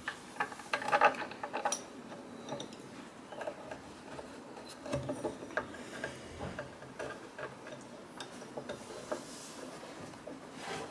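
Light, irregular clicks and small knocks of a metal drawer handle and its screws being fitted by hand to a wooden drawer front, with a quick cluster of clicks about a second in.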